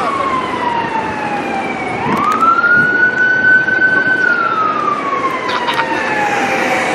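Emergency-vehicle siren on a slow wail: it rises quickly about two seconds in, holds its high note for about two seconds, then slides down over about three seconds, rising again at the very end. A steady road noise lies under it.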